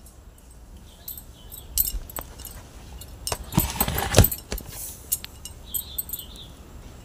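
Scattered light clicks and clinks of handling, with a louder rustle and bump about four seconds in, as a hand moves among steel bowls and the phone is shifted.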